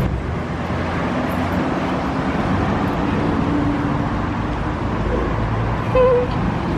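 Steady road traffic noise: vehicles running past with a low rumble. A brief faint wavering tone about six seconds in.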